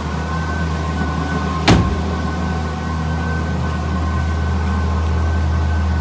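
2011 Volvo S60 T6's turbocharged straight-six idling steadily shortly after a cold start, heard at the exhaust. A car door shuts with a single sharp thump about two seconds in.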